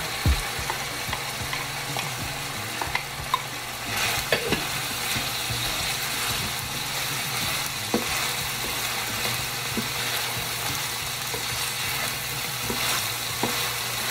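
Diced vegetables sautéing in hot olive oil in a pan, sizzling steadily, while a wooden spatula stirs them with scattered scrapes and light knocks against the pan. The sizzle grows a little louder about four seconds in.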